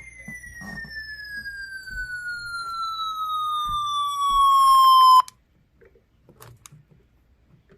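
A single electronic tone sliding steadily down in pitch and growing louder, then cutting off abruptly about five seconds in.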